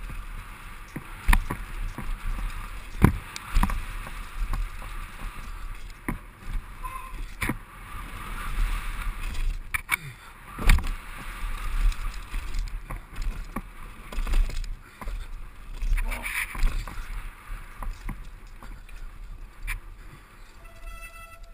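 Mountain bike descending a rough dirt trail at speed: tyres rattling over dirt and roots, wind rumbling on the microphone, and sharp knocks as the bike jolts over bumps and drops, the loudest about eleven seconds in.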